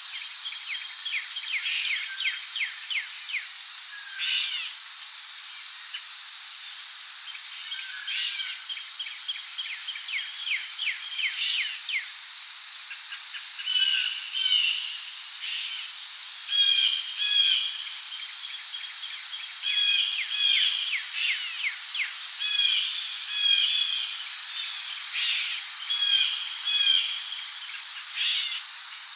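Rainforest ambience: a steady high drone of crickets, with short bird chirps and calls over it that grow busier in the second half, many in quick pairs.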